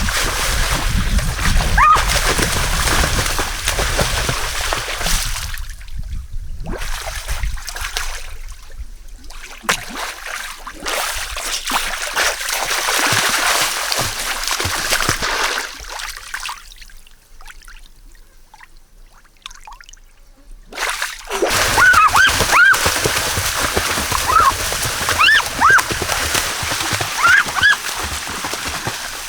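Water splashing and sloshing in a swimming pool, with a quieter lull about two-thirds of the way through before the splashing picks up again. Short high-pitched calls sound over the splashing near the end.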